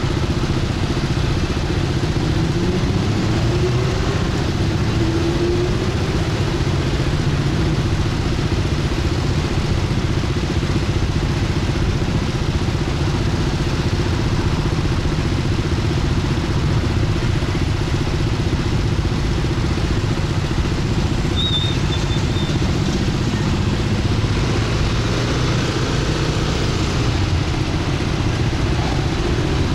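Motorbike engine running under a rider through city traffic, with steady road noise. The engine note rises about three seconds in as the bike speeds up. A few short high chirps come about two-thirds of the way through.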